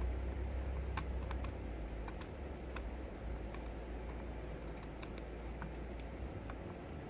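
Irregular light clicks and taps from small plastic parts of a sat nav being handled and pried apart during disassembly, over a steady low hum.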